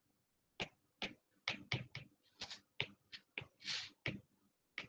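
Faint, irregular clicks of a stylus tip tapping and writing on a tablet's glass screen, about a dozen of them, with a couple of softer, longer strokes among them.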